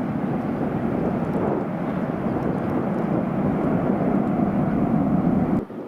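Airbus A330-200 jet engines rumbling steadily as the airliner rolls down the runway after touchdown, building slightly, then cutting off abruptly near the end.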